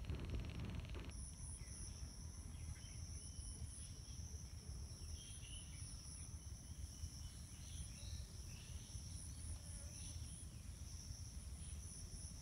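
Insects chirring steadily in two high pitched bands, starting about a second in, over a low steady rumble.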